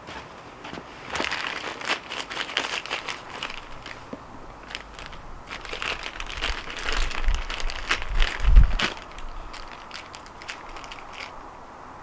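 Hands rummaging among and handling small parts and plastic: crinkling, rustling and light clicks, with a dull low thump about eight and a half seconds in.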